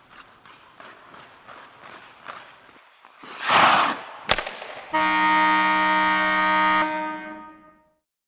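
Faint regular tapping, then a loud rushing swish and a sharp click, followed by a loud steady horn blast about five seconds in, held for about two seconds before it cuts and fades away.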